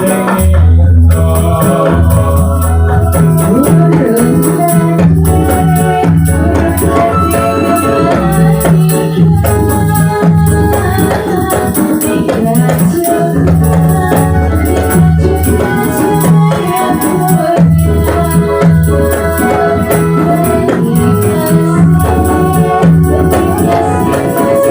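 Music for a Ndolalak dance: electronic organ melody over a steady low drum beat, with shaken rattles.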